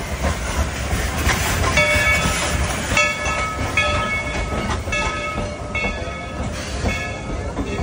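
Dollywood Express steam train passing close by: a steady low rumble from the locomotive and cars, with a bell ringing about once a second from about two seconds in.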